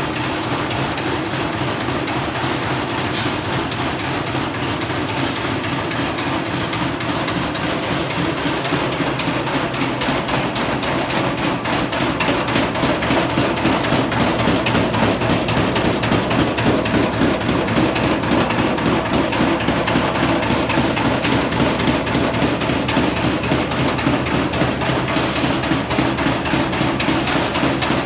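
Pillow-shape charcoal briquetting machine running: the roller press and the vibrating screen make a steady, dense clatter of rapid metallic knocks and rattling briquettes over the drive's hum, a little louder from about twelve seconds in.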